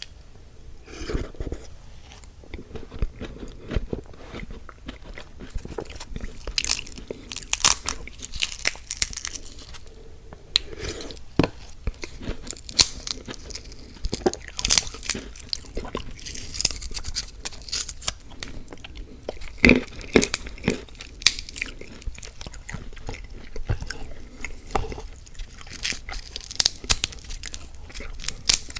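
A person chewing and biting fast food close to the microphone, with irregular crisp crunches and mouth clicks.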